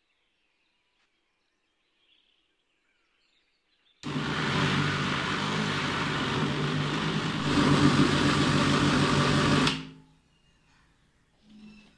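Small electric food processor switched on about four seconds in, running steadily for about six seconds as it blends a thick chicken-and-bread mince, then stopping and winding down.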